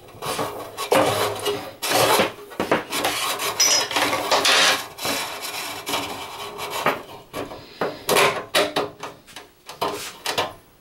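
A jacketed electrical cable being fed and pulled through a hole in a steel control-box enclosure, rubbing and scraping against the panel and wiring in a run of irregular strokes.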